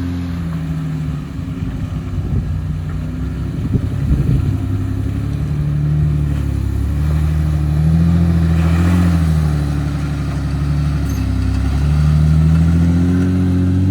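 Background music with low held chords that change every couple of seconds.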